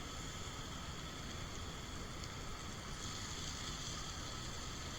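Steak and shrimp frying on a flat-top griddle, a steady sizzle.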